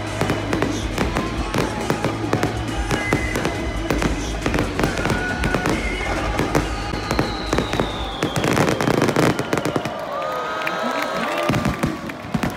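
Aerial fireworks bursting overhead in rapid, irregular succession, with many sharp cracks and crackles. Music plays under the bursts and stops about two thirds of the way through.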